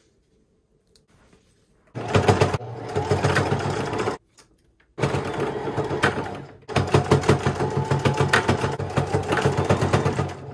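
Electric sewing machine, a Singer Fashion Mate, stitching in three runs of rapid, even needle strokes. It starts about two seconds in, stops briefly twice, and the last run is the longest.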